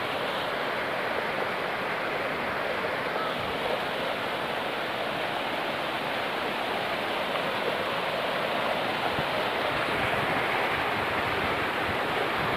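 Steady rushing of a mountain river running fast over boulders and rocks.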